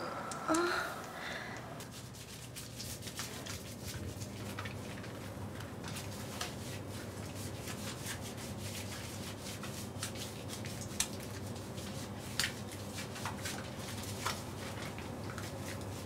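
Hands rubbing soap lather over wet skin: soft, scratchy rubbing strokes with a few sharper ones, over a low steady hum.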